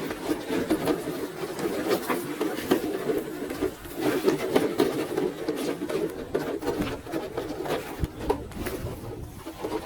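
Small electric motor and gear drivetrain of a 4x4 RC crawler car whirring as it drives, its level rising and falling, with irregular clicks and scrapes from the tyres and chassis on rock.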